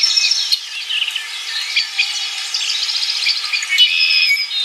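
Birds chirping and trilling: many quick, overlapping high calls in a busy chorus.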